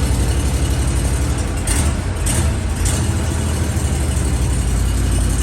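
Large band sawmill running: a steady, loud low engine rumble, with three short hissing bursts about two to three seconds in.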